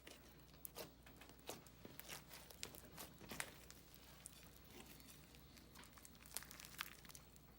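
Handmade slime being squished by hand, giving faint, irregular small pops and crackles.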